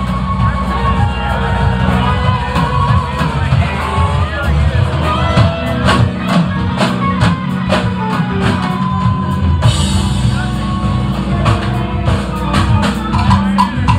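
Live rock band playing through a bar's PA: electric guitars over a steadily beating drum kit.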